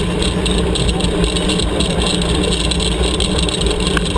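Steady rush of wind buffeting the microphone together with the rumble and rattle of a tandem mountain bike's tyres rolling fast over a dirt trail.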